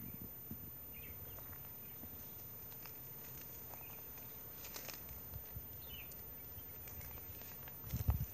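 Faint, short bird chirps every second or two over a low, uneven rumble, with a few louder low thumps near the end.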